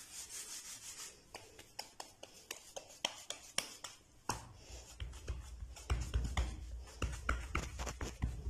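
Hands rubbing oil over a plastic cutting board, then pressing and patting a ball of mashed-potato dough flat on it. Scattered light taps run throughout, and from about four seconds in there are repeated dull low thumps as the dough is pressed down.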